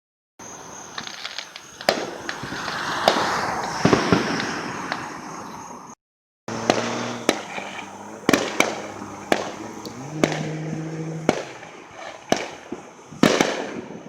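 Fireworks going off: a run of sharp bangs and dense crackling, with a brief dead silence about six seconds in, then more scattered bangs.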